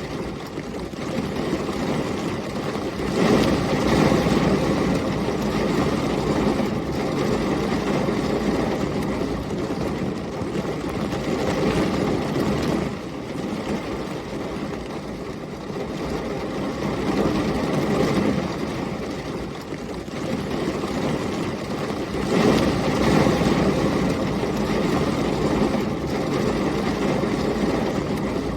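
Heavy rain falling with storm wind, a dense steady wash of noise that swells and fades several times.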